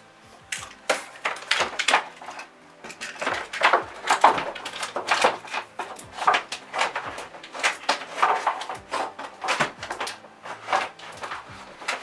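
Leftover packing tape being peeled off the plastic liner inside a new mini fridge: a dense run of irregular crackles and clicks.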